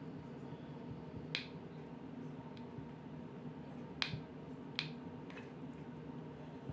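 Hot glue gun being squeezed to feed glue onto card: a handful of short sharp clicks at irregular spacing, the clearest about a second and a half in and two close together around four to five seconds in, over a steady low hum.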